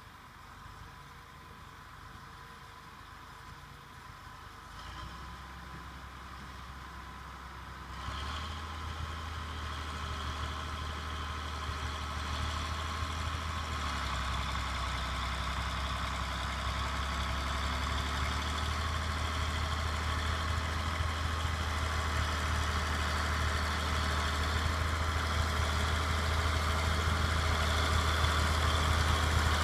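John Deere 4240 tractor's six-cylinder turbo diesel engine running steadily while ploughing. It grows steadily louder as the tractor comes closer, with a jump in level about 5 and 8 seconds in.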